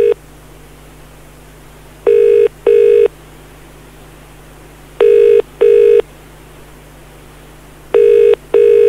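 British telephone ringing tone heard down the line as a call is placed: a double ring, two short steady buzzes close together, repeating about every three seconds, three times over. The call is unanswered until it is picked up just after.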